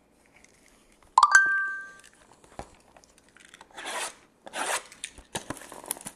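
Plastic shrink wrap being torn and crinkled off a sealed box of trading cards, in a few rasping tears in the second half. About a second in, a sudden loud ringing ping sounds and dies away within a second.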